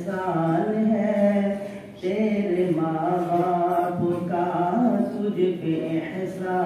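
A man singing a naat, an Urdu devotional poem in praise of the Prophet, solo and unaccompanied in long, held melodic lines, with a brief break about two seconds in.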